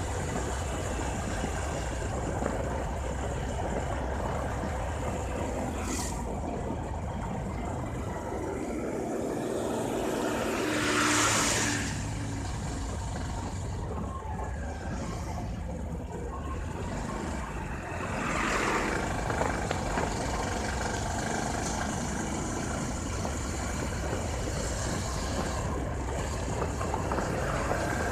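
Bajaj Discover 150F's single-cylinder four-stroke engine running as the motorcycle rides along, with steady wind rush on the phone's microphone. There are two louder rushing swells, about eleven seconds in and about nineteen seconds in.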